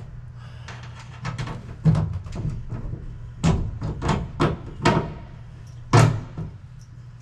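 About eight irregular knocks and thumps, the loudest about six seconds in, over a steady low hum: huck bolt pins being put into the drilled holes of a truck cab panel.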